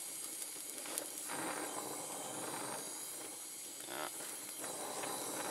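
Oxy-acetylene torch flame hissing steadily as it heats a steel hydraulic line fitting for brazing.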